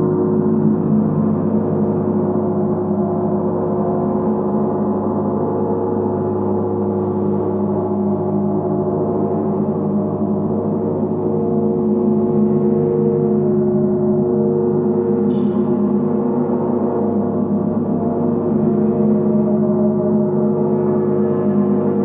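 Three hanging gongs, a large central one and two smaller side gongs, played continuously: a steady, dense wash of many overlapping ringing tones, with some tones swelling and fading in slow pulses.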